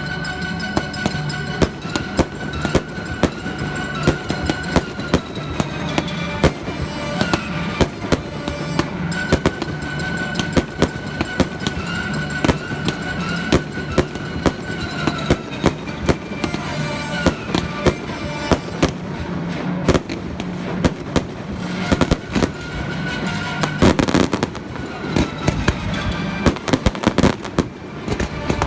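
Fireworks bursting in quick succession over music, with many sharp bangs and crackles throughout and the densest volley near the end.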